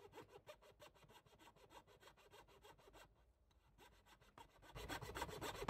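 Jeweler's saw cutting through the wooden headstock of a guitar neck: fast, even rasping strokes, faint, growing louder near the end before cutting off abruptly.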